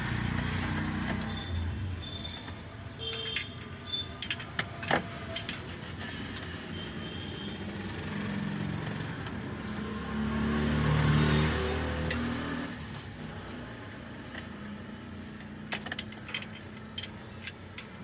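A motor vehicle's engine running steadily, swelling louder around ten to twelve seconds in, with scattered sharp metallic clinks a few seconds in and again near the end.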